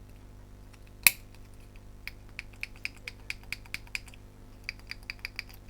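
Small tool picking and tapping at the plastic housing of a coffee machine while clearing out muck: one sharp click about a second in, then two runs of light ticks at about four a second.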